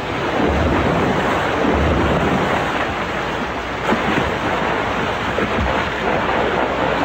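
Hippopotamuses thrashing in a river: steady splashing and churning water, with a few low thuds.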